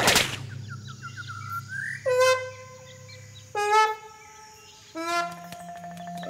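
Cartoon sound effects: a sharp hit at the start, a run of small rising chirps, then three long, reedy, horn-like notes one after another, each about a second and a half.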